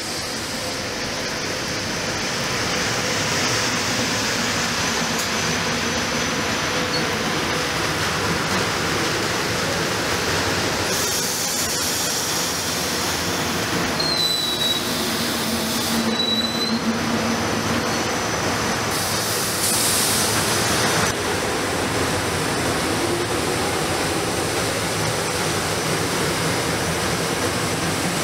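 GE Silverliner IV electric multiple-unit commuter train rolling past on its rails, the rumble building over the first few seconds and then holding steady. Two brief high squeals come near the middle.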